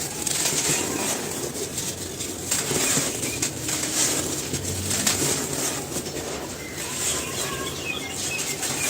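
Dry, crumbly cement being crushed and crumbled by hand: a continuous crisp crunching and crackling.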